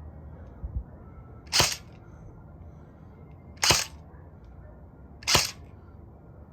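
Three single shots from a Crosman Pulse R76 electric airsoft rifle, each a short sharp crack, about two seconds apart.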